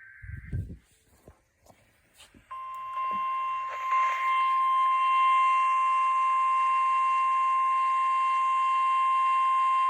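The tail of a SAME digital header burst, a short warbling data tone, ends just after the start. About two and a half seconds in, the NOAA Weather Radio 1050 Hz warning alarm tone comes on: one loud, steady, unbroken tone signalling an incoming emergency alert.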